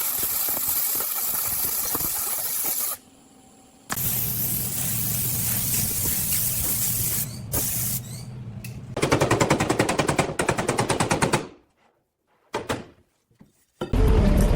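Workshop tool noises: a steady hiss that breaks off briefly and resumes, then a fast rattle of rapid impacts for about two seconds before it cuts off.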